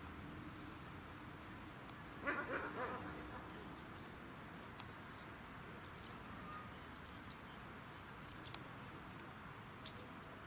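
Open-air ambience with a steady faint hiss and scattered tiny high-pitched chirps. A brief, louder cluster of pulses comes about two seconds in.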